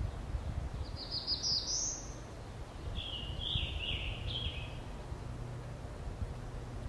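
Eastern wood-pewee singing two drawn-out slurred notes, the first high and rising, the second about a second later, lower and falling.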